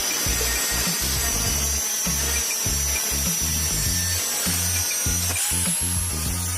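Power drill running steadily with a high motor whine that rises in pitch about five seconds in, over background music with a steady bass beat.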